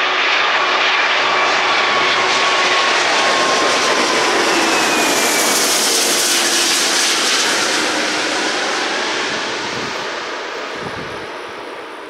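Jet aircraft passing close by on the runway or overhead: a loud engine roar with a faint whine that slides down in pitch as it goes by, fading over the last few seconds.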